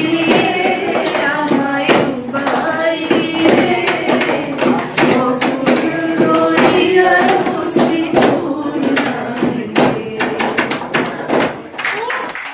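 A woman singing a Bengali song into a handheld microphone, with no instrument, over a running rhythm of sharp taps that keep time.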